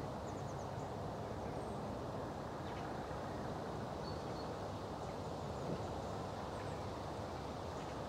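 Steady low outdoor rumble, like distant traffic, with a few faint chirps of small birds and one short high whistle about four seconds in.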